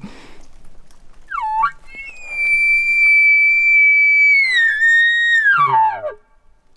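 Imitation elk bugle blown on a call by a hunter locating bulls: a few short rising notes, then a long high whistle held steady, stepping down and sliding away into low grunts near the end.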